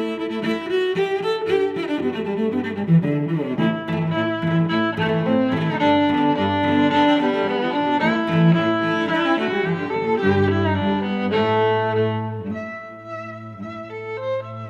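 Background music played on bowed strings, cello and violin, with a melody moving over sustained low notes.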